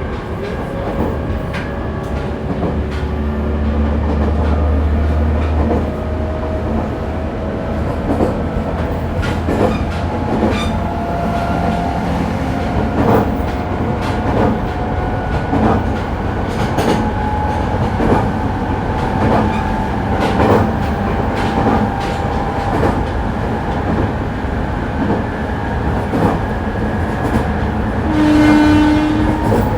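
Onboard running sound of a JR East E501 series electric train, heard inside motor car MoHa E500-10. The traction motors' whine rises slowly in pitch as the train picks up speed, with repeated clicks as the wheels cross rail joints. A brief loud tone sounds near the end.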